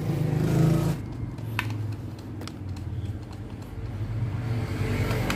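Low, steady mechanical hum with a few sharp clicks about one and a half to two and a half seconds in, from hands working lugged wires onto circuit-breaker terminals.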